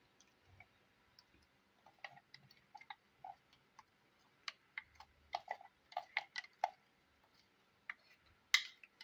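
Faint, irregular clicks and taps of a spoon against a mixer-grinder jar and plate while coarsely ground onion and green chilli paste is scooped out; the taps come thickest a little past the middle, and the loudest comes near the end.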